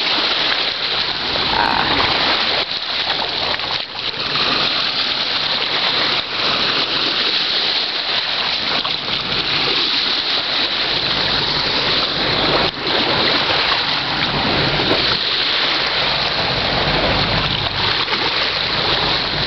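Small waves lapping and splashing over stones at the water's edge: a steady wash of water. A low rumble comes in during the second half.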